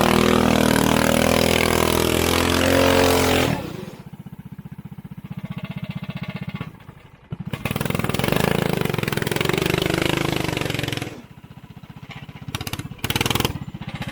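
Go-kart's 212cc single-cylinder engine revving hard, dropping back to idle about three and a half seconds in, revving up again for a few seconds and falling back to idle. A few sharp knocks come near the end.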